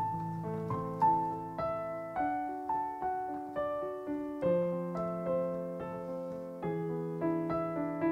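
Instrumental piano passage: a slow melody of single notes struck about twice a second, each fading away, over held low notes.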